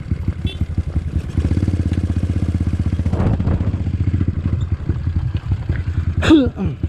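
Trail motorcycle engine running steadily under way, its rapid firing pulses even throughout. About six seconds in, a short call falls in pitch over it.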